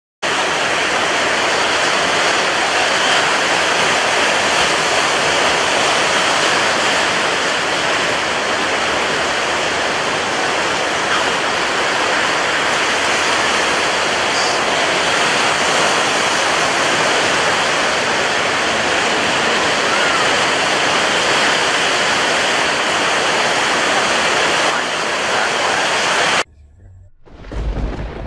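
Heavy rain pouring down in a steady, dense hiss. Near the end it cuts off and a thunderclap breaks, a sudden deep rumble that begins to fade.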